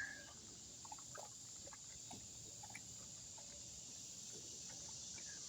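Steady high insect chorus of crickets, with faint scattered little splashes and ticks of hand-rinsing washing in a jug of river water.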